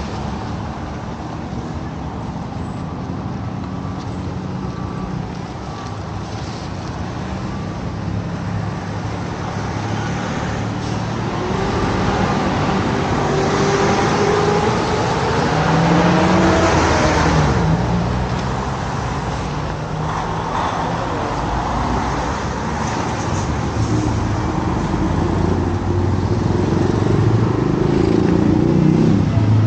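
Motorcycle engine idling with a steady low hum while road traffic passes alongside; around the middle, louder passing vehicles add engine notes that rise and fall.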